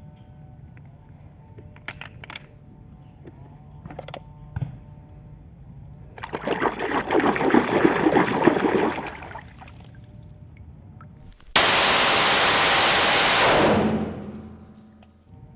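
Water rushing and spraying over toy vehicles as they are washed, in two bursts: a rougher, fluttering one midway, and a louder, steadier spray near the end that fades away. A few light clicks of plastic toys come before.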